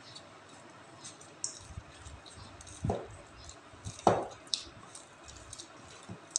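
Hands kneading soft flour dough in a stainless steel bowl to work red food colouring into it: faint sticky squishing, with two short thumps about three and four seconds in, the second the louder.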